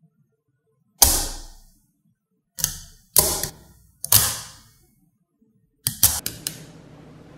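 Small magnetic balls snapping together as a rail of them is clicked onto a cube frame: a sharp clack about a second in and three more over the next few seconds, each trailing off in a short rattle, then a quick run of several clicks near the end.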